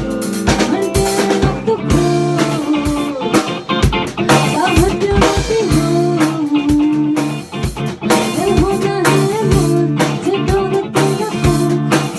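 Band playing an instrumental break: a guitar lead with bending notes over steady drum kit and bass.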